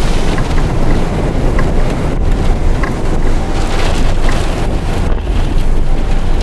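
Wind buffeting the microphone of a camera on a fast-moving vehicle: a loud, steady rush of air, heaviest in the deep low end.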